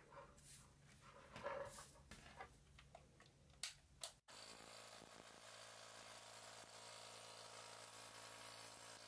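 Near silence: a few faint taps and rustles, then a sudden cut about four seconds in, after which a faint, steady low hum runs on.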